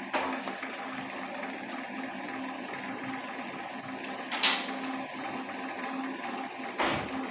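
Bread pakoda deep-frying in hot oil in a kadhai, a steady sizzle, with the slotted steel spoon knocking against the pan about four and a half seconds in and again near the end.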